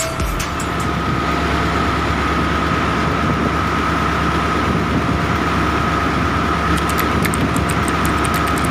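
A fishing boat's engine running steadily under a broad rush of wind and sea noise, with a thin steady whine above it.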